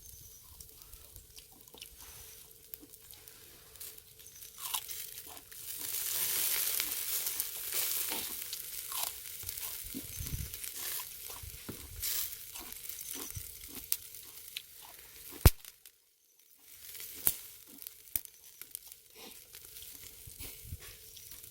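Close-up eating sounds: crunchy food being bitten and chewed, with small clicks of chopsticks, over a hiss of pork sizzling on a charcoal brazier that swells for a few seconds near the middle. One sharp click stands out about two-thirds of the way through.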